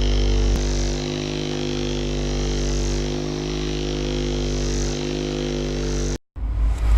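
Electric percussion massager buzzing steadily as it is worked over the low-back muscles. It cuts off abruptly about six seconds in, and a louder, rougher noise follows near the end.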